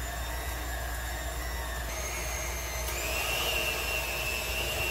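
Electric hand mixer running, its beaters whirring through peanut butter and heavy whipping cream in a bowl. The motor's steady whine steps up in pitch and gets a little louder about three seconds in.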